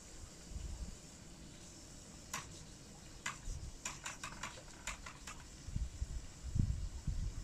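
A run of about a dozen sharp clicks a couple of seconds in, then low thumps near the end, over a steady faint hiss.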